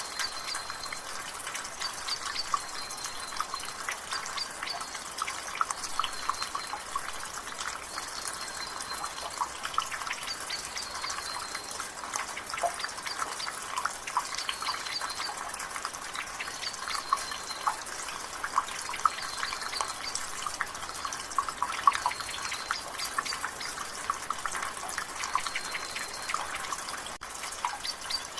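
Water dripping from a gutter in light rain: many quick, irregular drips over a steady patter. A bird calls throughout, one short high note every second or two.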